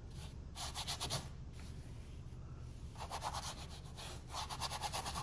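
Bristle paintbrush scrubbing a thin oil-paint wash onto canvas in quick back-and-forth strokes: a soft, rhythmic scratching as a toned ground (imprimatura) is laid down. The strokes come in spells, briefly about a second in and again through the last two seconds, with a quieter gap between.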